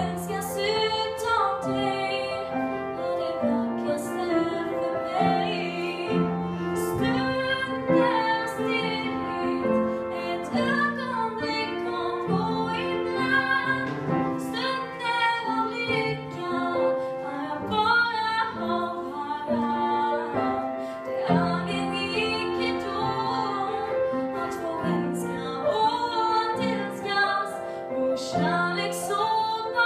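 A woman singing a slow song into a microphone, accompanied by an upright piano.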